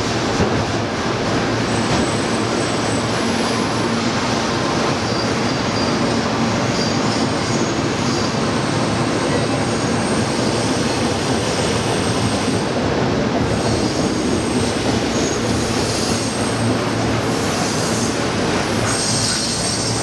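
Freight train of autorack cars rolling steadily past on curved track: a continuous rumble and clatter of steel wheels on rail. Thin, high flange squeals from the wheels come and go on the curve.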